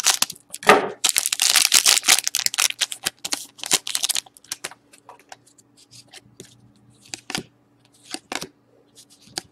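A foil hockey-card pack being torn open and crinkled for about three seconds, followed by a scatter of light clicks and taps as the cards are handled.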